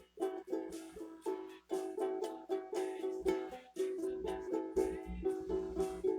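Acoustic string instrument strummed in a quick, steady rhythm of chords, about four strokes a second, with some low bumps partway through.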